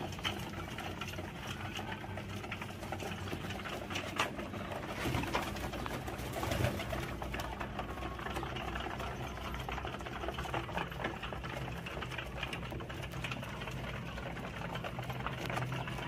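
A flock of fancy pigeons pecking grain from a metal feeding dish: a fast, continuous clatter of many beaks striking the pan.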